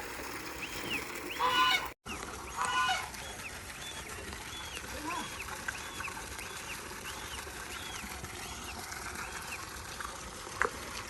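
Birds calling: a couple of loud harsh calls in the first three seconds over a steady run of short, high chirps about two a second.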